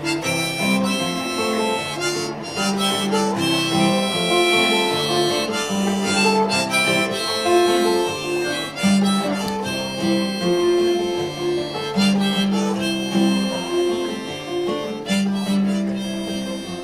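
Harmonica played from a neck rack in an instrumental break over acoustic guitar accompaniment, with notes held about a second at a time between shorter phrases.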